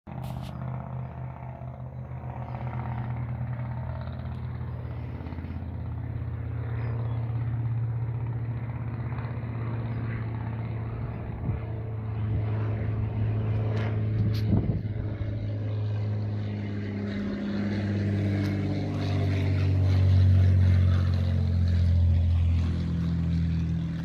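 Light propeller airplane's engine droning on its landing approach, growing louder as the plane nears, with gusty wind noise on the microphone.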